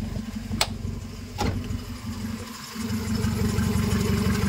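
Honda Civic engine idling, with two sharp clicks about half a second and a second and a half in; the idle sags briefly near the middle, then picks up again, louder. The engine is running normally after a loose connection at its coolant temperature sensor was repaired.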